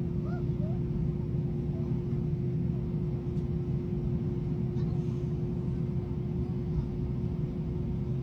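Steady low drone inside the cabin of an Airbus A321 waiting on the ground, with a constant hum-tone riding over it. Faint passenger voices under the drone in the first second.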